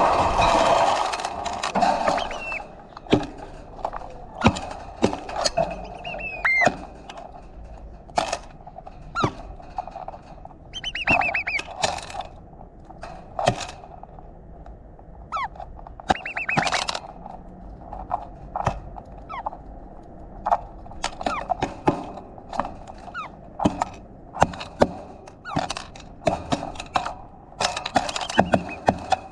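Small birds pecking seed at a feeder bowl, giving a string of irregular sharp taps and knocks, with a few short high chirps in between.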